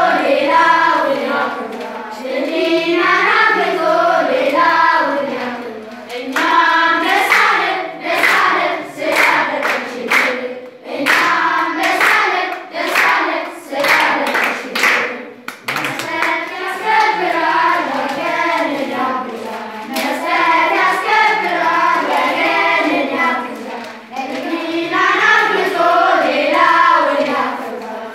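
A group of children singing an Amharic song together. From about seven seconds in until about sixteen they clap along in time.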